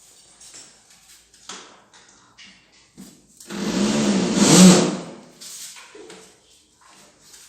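Cordless screwdriver driving a self-tapping screw into a window trim strip: its motor whine rises and falls for about a second and a half around the middle, amid light handling knocks and clicks.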